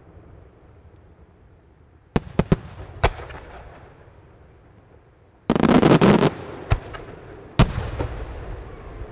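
Aerial firework shells going off. A quick run of sharp bangs about two seconds in, a dense rattle of reports lasting under a second a little past the middle, and two more single bangs, each trailing off in a rolling echo.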